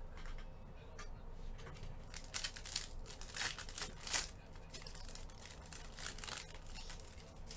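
Foil trading-card pack wrapper being torn open and crinkled by gloved hands, the loudest tearing and crackling coming between about two and four and a half seconds in.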